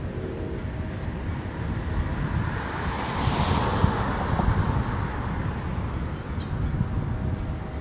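Nickel Plate Road 765 steam locomotive pulling out in the distance, a low steady rumble under wind noise on the microphone. Around the middle, a car passes close by, its tyre hiss swelling and fading.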